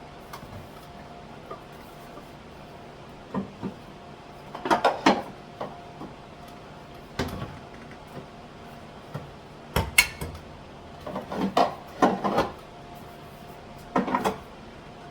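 Spice jars and food containers being set back onto kitchen cupboard shelves: scattered knocks and clatters in small clusters a few seconds apart, over a faint steady hum.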